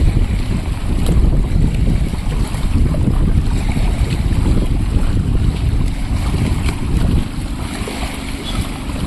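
Strong gusty wind buffeting the microphone, a loud, uneven low rumble that eases a little near the end.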